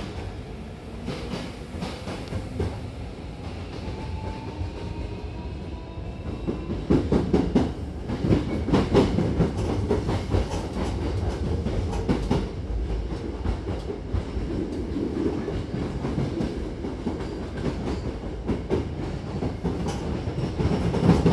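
Hankyu Kobe Line electric train heard from inside the carriage as it pulls away and gets up to speed. A faint rising whine comes first, then about six seconds in the running grows louder, with wheels clacking over rail joints.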